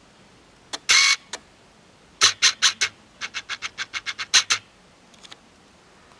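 A short rustle about a second in, then a quick run of sharp clicks and taps, about five a second for two seconds, with a few faint ticks after.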